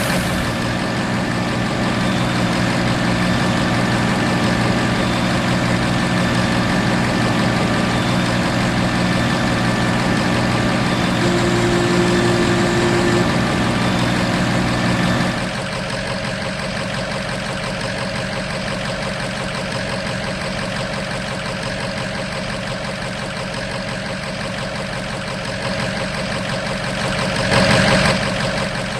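An engine running steadily at idle. About fifteen seconds in its low hum drops away, leaving a quieter steady hum, and a short louder rush comes near the end.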